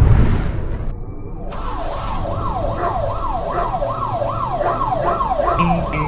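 Yelping siren sound effect, a fast run of falling wails at about two and a half a second, starting a second and a half in after a short whoosh. Music with a bass line comes in near the end.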